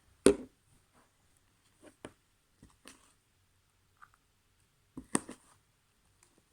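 Slime being squished and mixed by hand: scattered short sticky clicks and pops, the loudest about a quarter second in and another pair around five seconds in.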